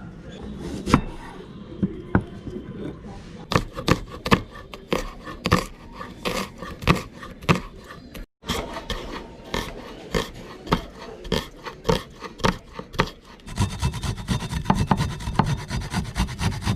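Cooking utensil scraping and knocking in a pan in repeated strokes, about one or two a second; it breaks off briefly about halfway and turns to faster, denser scraping near the end.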